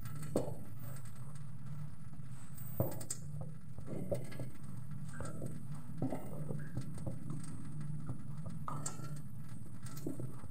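Hands kneading and squishing a dimsum meat-and-flour mixture in a pot, with soft irregular pats and taps, over a steady low hum.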